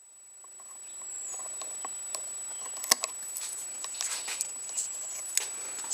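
Light clicks and scratching of hands working a rubber dust boot over the plunger of a motorcycle clutch lever, with one sharper click about three seconds in, over a steady hiss and a faint high whine.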